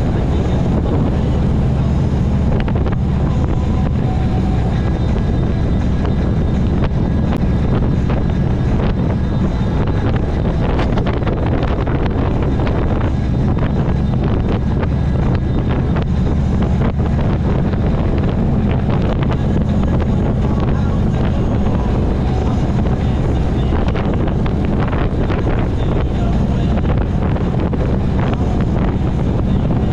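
Harley-Davidson V-twin engine running steadily at cruising speed, with wind noise buffeting the microphone.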